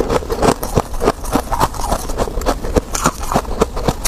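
Freezer frost being chewed, a close-miked run of crisp crunches and crackles several times a second.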